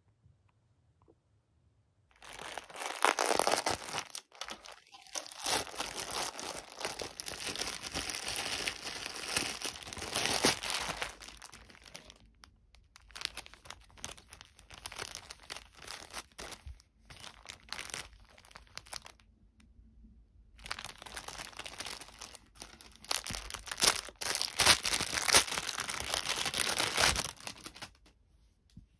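Parcel packaging being handled: long stretches of crinkling and tearing, starting about two seconds in, broken by short pauses.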